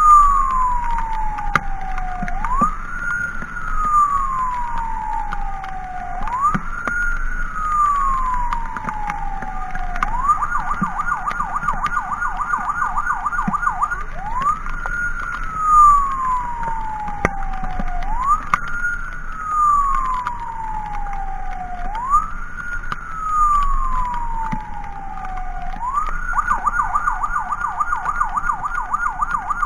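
Electronic emergency siren in wail mode, each tone rising quickly and falling slowly over about four seconds. About ten seconds in it switches to a fast yelp of three or four sweeps a second, goes back to the wail about four seconds later, and switches to the yelp again near the end.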